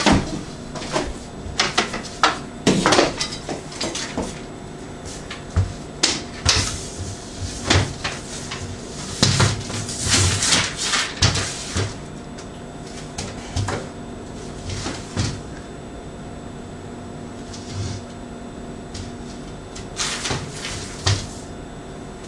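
Wooden art easel being handled and set up: repeated hollow knocks and clatters of its wooden legs and fittings, busiest in the first dozen seconds, then a canvas set onto it with a few more knocks near the end.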